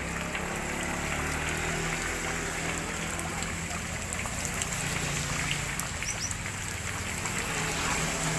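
Water trickling and splashing steadily, with a low steady hum underneath and a couple of short high chirps about six seconds in.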